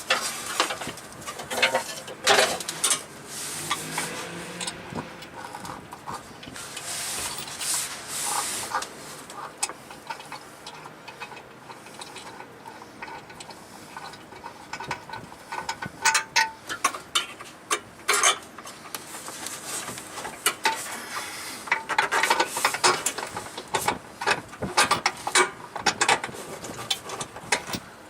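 Hand-tool work on a truck: irregular metallic clicks and knocks, with rapid runs of clicking in places, like a ratchet being worked.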